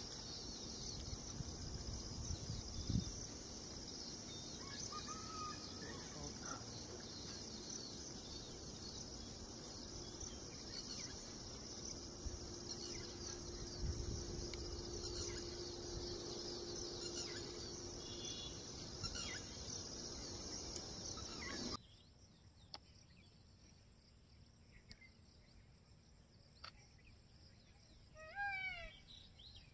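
Jungle ambience: a steady high-pitched insect chorus with a few short bird calls. About three-quarters of the way through it drops abruptly to a quieter background, and a short series of sweeping bird chirps follows near the end.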